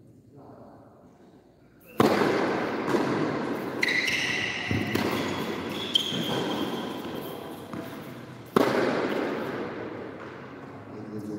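Two loud sharp bangs about six and a half seconds apart. Each trails off over several seconds into crackling, hissing noise, and a thin whistle-like tone is heard between them.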